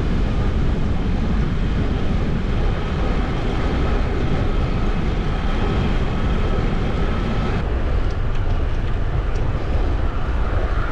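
Wind buffeting a bike-mounted action camera's microphone while riding at speed, a steady heavy low rumble with hiss above it. About seven and a half seconds in, the higher hiss drops away abruptly.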